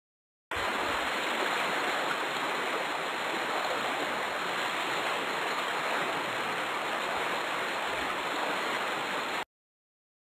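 Rushing, pouring water sound effect as a pit fills with water; it starts about half a second in, runs steadily and cuts off suddenly near the end.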